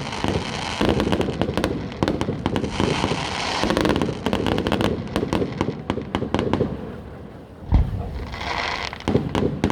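Fireworks display: a dense run of crackling and popping over a steady rumble, thinning out, then one deep bang about eight seconds in, followed by a short hiss and a few more pops.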